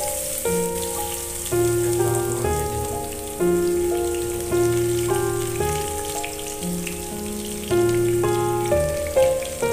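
Chopped onions sizzling in hot oil in a pot, a steady hiss. Background music plays over it, its notes changing about once a second.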